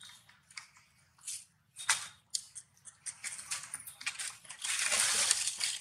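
Dry fallen leaves rustling and crackling under macaques moving about, in short irregular scuffs that build to a longer, louder rustle about five seconds in.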